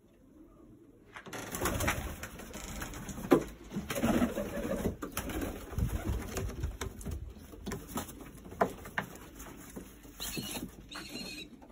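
Domestic pigeons cooing in a loft over a rustling noise full of clicks, which starts about a second in and stops just before the end.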